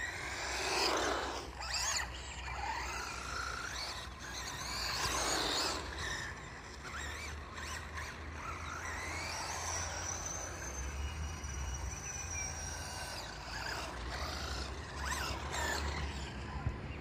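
HPI Savage XS Flux electric RC monster truck driving: its brushless motor whines, rising and falling in pitch as it speeds up and slows, with a steadier high whine in the middle, over a low rumble.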